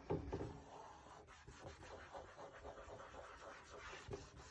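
An alcohol prep pad being rubbed over the surface of an SUV's air dam, a faint, irregular scratchy wiping.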